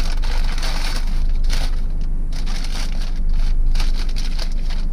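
Paper food wrapping crinkling and rustling in irregular bursts as it is unfolded and pushed aside by hand, over a steady low hum.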